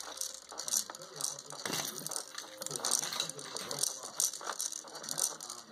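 Plastic baby activity walker toy clicking and ratcheting as a cat paws at its spinning ball and knobs, in irregular runs of sharp clicks.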